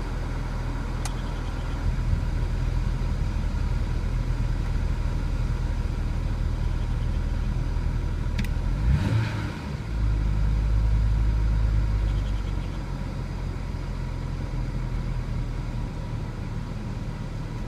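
BMW N54 twin-turbo inline-six idling steadily after a cold start, while suffering intermittent misfires that can be felt. About nine seconds in, the low rumble dips briefly and then grows louder for a couple of seconds before settling back.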